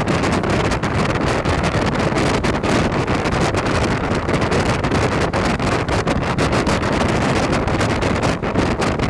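Electric commuter train running across a railway bridge: a steady rumble of wheels on the rails, with close-packed rattling clicks throughout.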